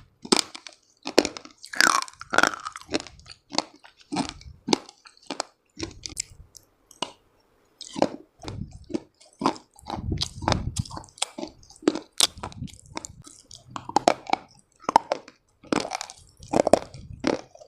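Close-miked biting and chewing of crunchy baked earth, with dense, irregular crunches that briefly pause about six seconds in and then resume.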